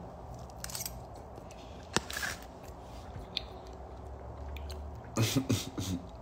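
A person eating eggs and potatoes close to a phone microphone: chewing and mouth sounds with scattered short clicks, the loudest cluster near the end.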